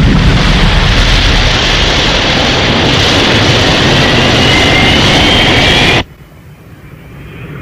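Thunderbird 2's rocket engine sound effect at launch: a loud, steady rush of thrust as the craft blasts up its launch ramp, with a faint rising whine in its last seconds. It cuts off suddenly about six seconds in.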